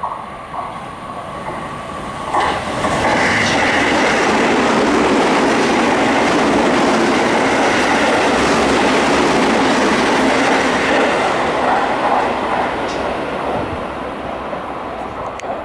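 Seibu 20000 series electric train passing close by at speed, its wheels running on the rails. The noise swells sharply about two seconds in, holds loud for most of the pass, then fades near the end.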